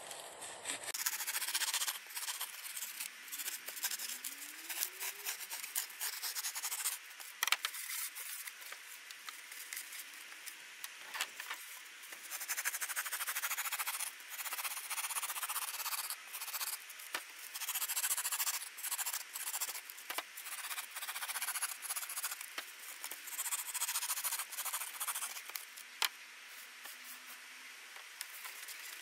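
Foam cooler lid rubbing and squeaking against a fan being pushed and worked into the hole cut for it, in a long run of irregular scratchy strokes.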